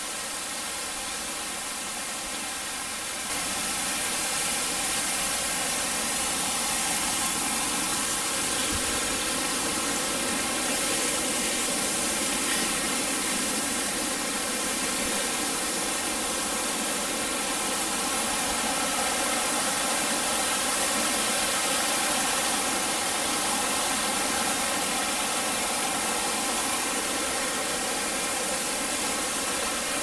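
Steady rush of a mountain stream tumbling over rocks, an even hiss that grows louder about three seconds in.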